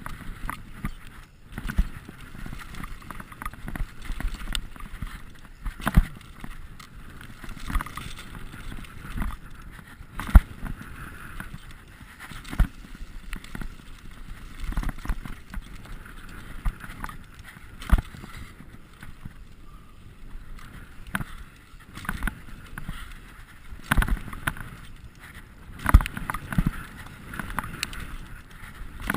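Mountain bike ridden along a dirt trail: steady tyre and rolling noise with irregular knocks and rattles from the bike over bumps.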